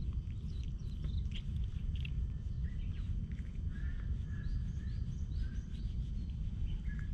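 Small birds chirping and singing, with a run of four short arched notes about halfway through, over a steady low rumble.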